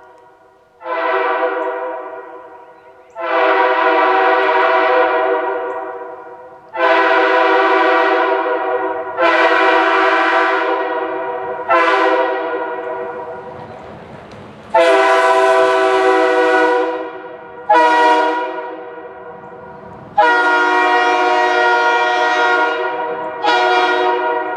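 Multi-chime train air horn blown in a series of about nine blasts, each sounding a chord of several steady notes that starts sharply and fades away over two to three seconds.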